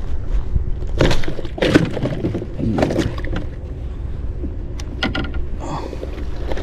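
Irregular knocks, cracks and scrapes on the wooden boat's planks and hold as a freshly caught fish is handled, loudest in bursts a second or two in. A low steady rumble runs underneath.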